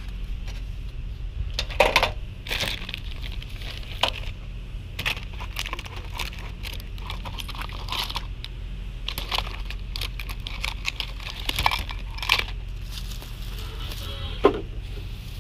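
Hands rummaging through small goods in a wicker basket and plastic bags: irregular rustling and crinkling with sharp clicks and knocks as things are picked up and put down, over a steady low hum.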